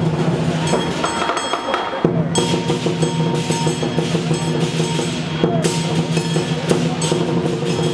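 Lion dance percussion: a large Chinese lion drum beaten steadily, with cymbals crashing in time and a gong ringing underneath. The ringing tones drop out briefly about two seconds in, then come back.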